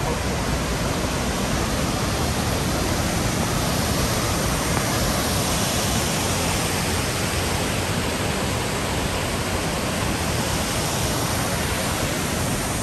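The Rhine Falls, a large waterfall, with water rushing in a steady, even noise that does not let up.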